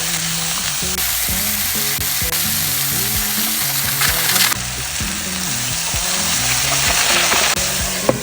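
Chicken pieces frying in a pan, giving a steady, loud sizzle.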